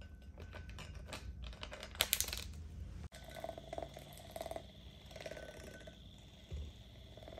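Kitchen clatter: rapid light clicks and taps of utensils and containers during food preparation, loudest about two seconds in. After a cut about three seconds in there is a quieter steady hum with a few scattered clinks.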